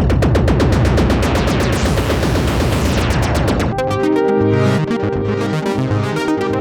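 Moog Muse analog polyphonic synthesizer playing a fast, evenly pulsing sequenced pattern with a bright, noisy sweep. About two-thirds of the way through it changes abruptly to held chords over a moving bass line.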